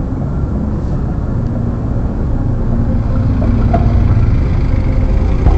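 A van driving past close by, its engine and tyres rumbling and growing louder toward the end, over steady street traffic.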